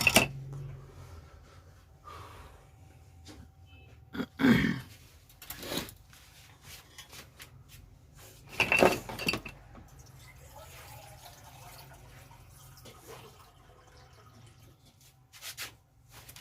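Handling noises on an electronics workbench: a handful of short knocks and scrapes of tools and small parts being picked up and set down, during resistor rework on a stabilizer's delay-timer board. Between the noises there is a faint steady hum.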